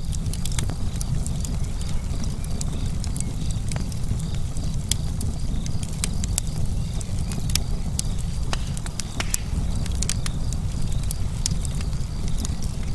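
Wood fire burning, with frequent sharp irregular crackles and pops over a steady low rumble.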